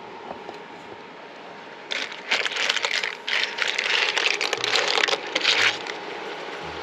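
A pan of pipis in an oily sauce crackling and sizzling on an induction cooktop as its lid is lifted off. The sizzle comes in irregular bursts for about four seconds, starting about two seconds in.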